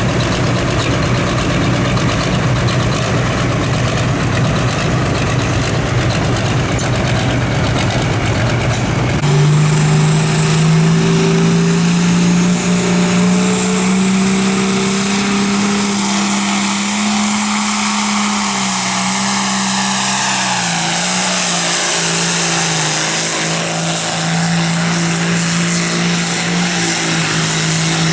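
A pulling vehicle's diesel engine running hard at high revs during a pull down the track. About nine seconds in, it settles into a steady high-pitched drone that dips slightly in pitch and then holds.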